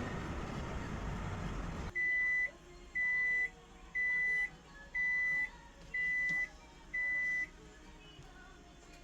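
Washing machine buzzer beeping six times at a steady high pitch, about one beep a second: the signal that the cycle has finished. Before it, a steady noisy machine sound cuts off abruptly.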